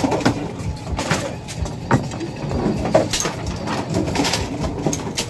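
Bowling pinsetter running through its cycle: a steady mechanical rumble with frequent irregular clanks, knocks and squeaks as the sweep clears the pins and the deck works.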